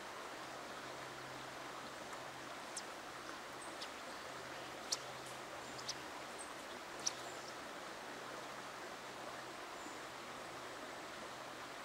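Steady rushing of a shallow river flowing over stones, with a few short sharp clicks about three to seven seconds in.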